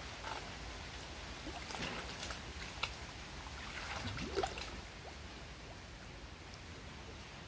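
Water sloshing and splashing around a person wading through a muddy channel, with irregular sharper splashes over the first half and the loudest about four seconds in, then quieter sloshing.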